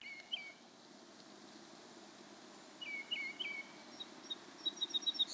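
Wild birds chirping over a steady background hiss: a bird gives a short gliding call early, then three quick gliding calls around the middle, followed by a fast run of high chirps near the end.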